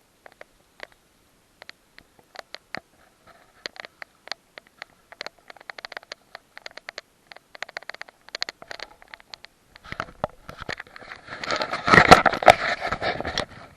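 Scattered crackling and rustling clicks that come thicker and faster, then a loud scraping rustle for about three seconds near the end.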